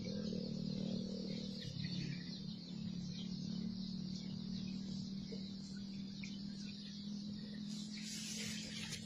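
Birds chirping over a steady low hum, with a rustle of hands moving through grass and soil near the end.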